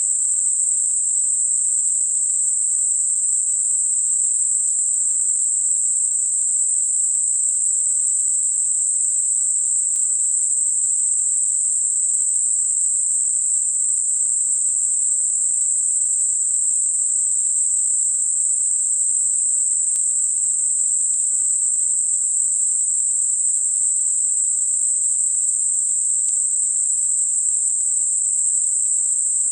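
Steady, high-pitched hiss of computer-generated narrow-band noise centred on 8 kHz, with no low end, made as a tinnitus masker. It runs evenly without any change.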